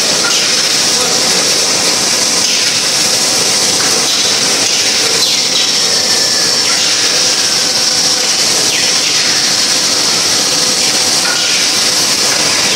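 Automatic wafer biscuit production line running: steady, loud machine noise dominated by a high hiss, with a few faint squeaks now and then.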